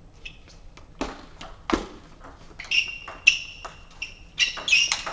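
Table tennis rally: the ball clicks sharply on the table and off the bats, about a dozen quick knocks, some with a short high ring, coming closer together in the second half.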